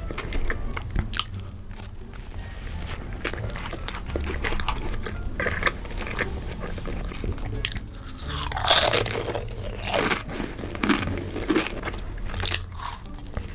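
Close-miked eating: bites crunching through food and chewing, a steady run of short crunchy clicks, the loudest about nine seconds in.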